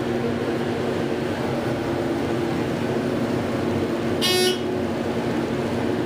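Steady hum and rumble inside a ThyssenKrupp elevator car, with one short electronic chime a little past four seconds in.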